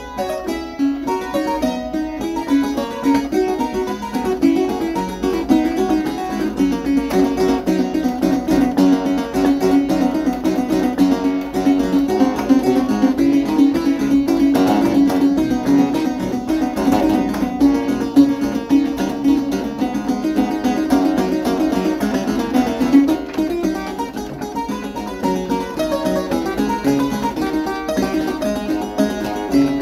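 Clavichord (a Carl Fudge kit instrument) being played in a continuous improvisation, a steady stream of notes with no break, picked up by a phone microphone.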